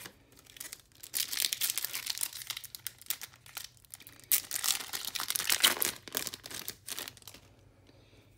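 A trading-card booster pack's wrapper being torn open and crinkled by hand, in two bouts of crackling, the second starting about four seconds in.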